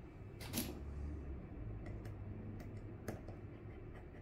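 Small clicks and taps from hands handling an opened iPhone with its battery exposed, with one louder knock about half a second in and lighter clicks a few times after, over a steady low hum.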